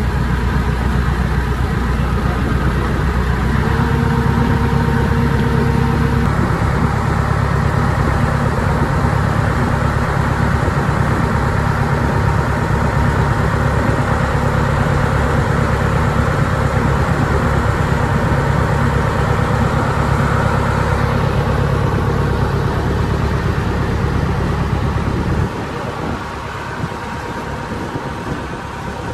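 Engine of a small tour boat running steadily under way, a constant drone with water rushing along the hull. About 25 seconds in, the drone drops away abruptly and only a quieter rushing sound remains.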